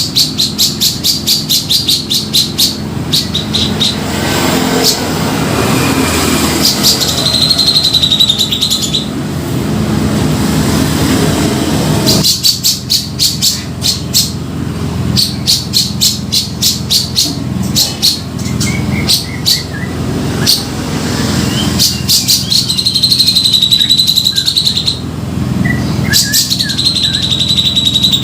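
Grey-cheeked bulbul (cucak jenggot) calls from a bird-lure recording: fast runs of sharp repeated notes, broken by several wavering, held high notes.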